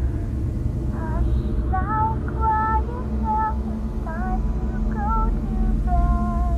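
Sound-collage music: a high singing voice carries a short melody of held notes with short glides between them over a steady low droning bass. The voice comes in about a second in and stops just before the end.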